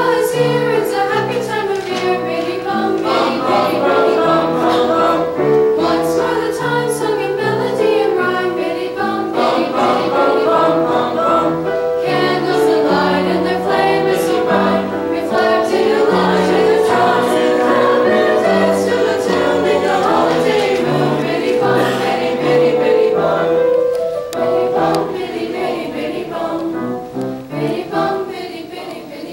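Mixed teenage choir singing in parts with piano accompaniment, getting softer near the end.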